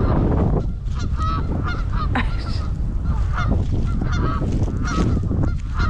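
A group of geese honking repeatedly in short, overlapping calls, agitated at being approached in their territory, over a steady low rumble.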